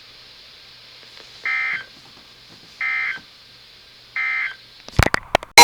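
Three short bursts of warbling data tone, evenly spaced about a second and a half apart, from an Emergency Alert System broadcast. This is the digital end-of-message code that closes the severe thunderstorm warning. A few sharp crackles come just before the end.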